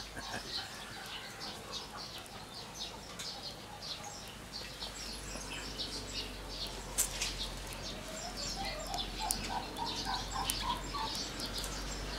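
Small birds chirping throughout in many quick, short, high notes. About eight seconds in, a lower bird call runs as a series of short notes stepping upward in pitch.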